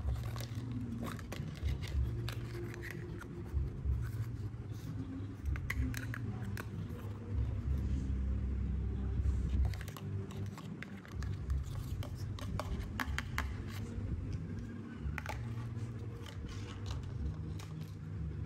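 Hard plastic toy cookware and dishes being handled: scattered light clicks, knocks and scrapes as the pieces touch and slide against each other, over a steady low rumble.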